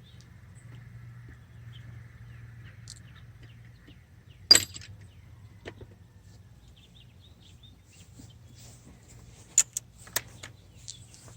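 Metal hand tools and sockets clinking while sizes are tried on a bolt: one sharp clank about four and a half seconds in, the loudest sound, a lighter click a second later, and a quick run of clicks and clinks near the end, over a faint low hum.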